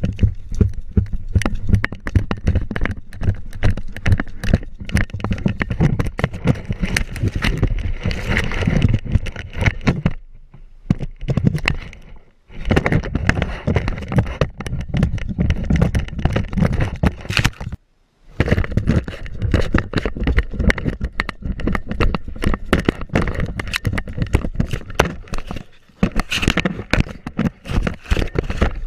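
Labrador retriever running and panting across grass, heard from a camera strapped at its collar: constant knocking, rubbing and jostling noise from the mount, with the dog's breathing and footfalls mixed in. The sound breaks off briefly twice near the middle.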